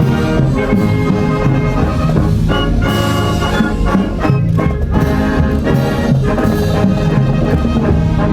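A school wind and marching band playing live: brass and woodwinds carrying the tune over a steady drum beat.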